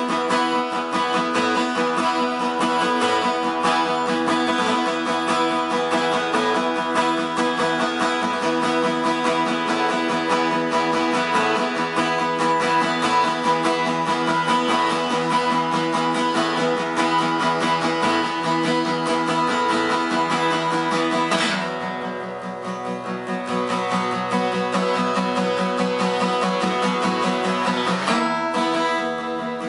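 Background music led by strummed acoustic guitar, thinning out and getting quieter about two-thirds of the way through, then filling out again near the end.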